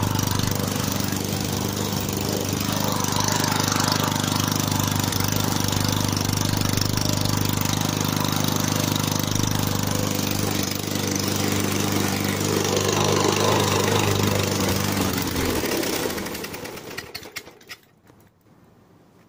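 A rope-started lawn mower engine running loud and steady through a homemade muffler with no suppressor. It dies away and stops about sixteen seconds in.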